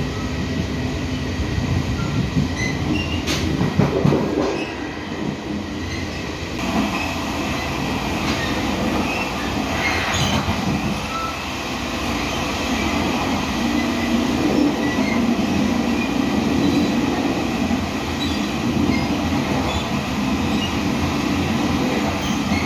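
Folding-door Chu-Kuang express passenger carriage running on the line, heard from inside: a steady rumble of wheels on rail with rattles and a few short clacks, around four and ten seconds in. The sound changes abruptly about six and a half seconds in.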